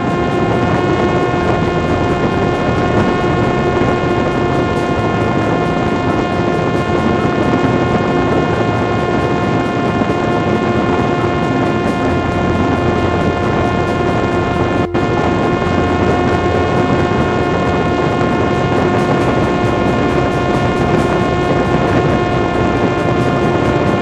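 Parrot Disco fixed-wing drone's electric motor and rear propeller running flat out, a steady high-pitched whine held at one pitch, over the rush of strong wind across the airframe at high speed. The sound drops out for a split second about fifteen seconds in.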